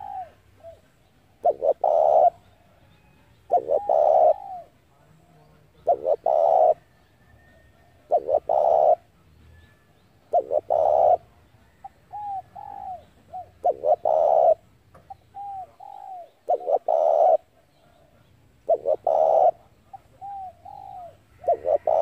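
Spotted dove cooing: loud phrases repeated about every two to three seconds, with softer short notes in some of the gaps.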